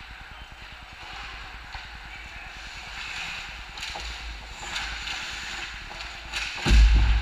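Ice hockey play at close range: skates scraping the ice, with sharp clicks of sticks and puck. A loud heavy thump comes near the end as players pile into the goal crease.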